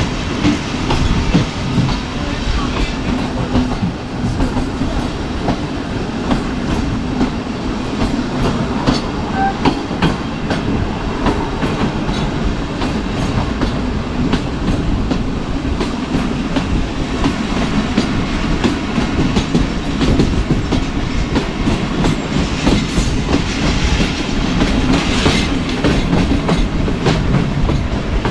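Kohat Express passenger train running along the track, its wheels clacking over the rail joints over a steady rumble.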